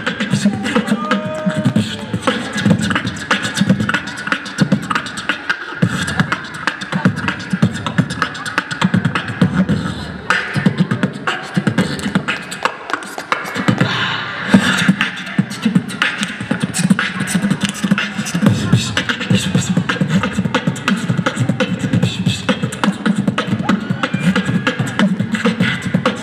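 A crew of several beatboxers performing together through handheld microphones and a PA system: a dense, steady mouth-made drum beat of kicks and clicks that keeps going without a break.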